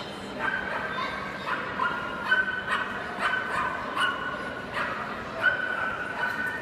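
A small dog yipping repeatedly, short high-pitched calls about one every half to three-quarters of a second.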